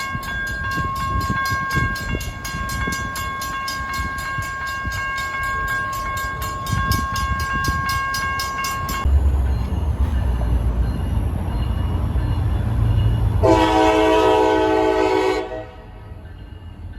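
Rapid, steady ringing at about four or five strikes a second, typical of a railroad crossing warning bell, cuts off about nine seconds in. A locomotive's low engine rumble follows, and a multi-note train horn sounds once for about two seconds near the end.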